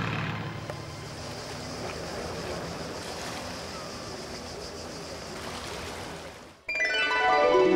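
Steady wash of sea water, an even hiss with no clear rhythm, that dies away about six and a half seconds in; music then starts suddenly near the end.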